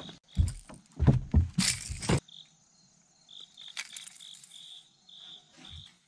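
A few heavy thumps and a burst of rustling noise in the first two seconds as a hooked fish is swung aboard a fishing boat, then insects chirping in short, high, repeated pulses.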